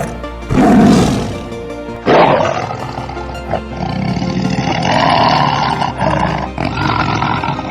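Siberian tiger roaring, with loud roars starting about half a second and about two seconds in, over background music.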